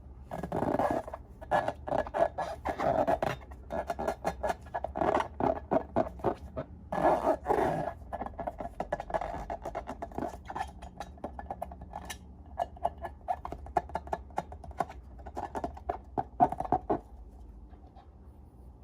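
Slime being squeezed and worked by hand with balloons, giving runs of rapid sticky clicks and squelches. They are loudest in the first half and grow quieter before stopping near the end.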